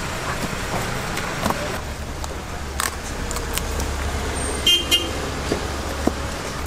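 Steady street noise with a low hum, broken about halfway by a short double toot of a vehicle horn. A few light knocks come from raw whole chickens being handled in a plastic cooler.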